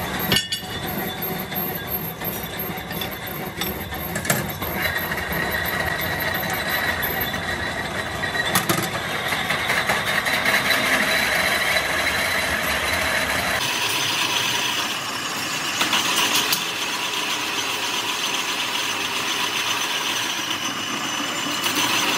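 Belt-driven metalworking lathes running, a steady mechanical drone of motors, belts and spinning chucks, with a few sharp metallic clanks. The sound changes abruptly about two-thirds of the way through.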